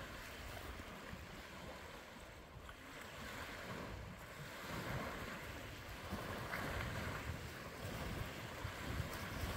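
Small waves washing onto a sandy lakeshore, with wind rumbling on the microphone.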